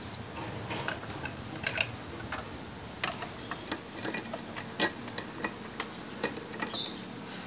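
Irregular clicks and sharp light knocks of hand tools and small metal parts being handled while a motorcycle's stator is being changed, the loudest knocks about five and six seconds in, with a brief high squeak near the end.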